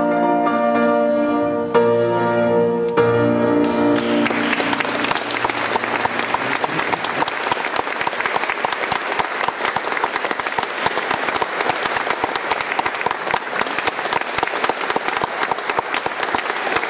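A soprano aria with piano accompaniment ends on its last piano chords. About four seconds in, audience applause breaks out and carries on steadily.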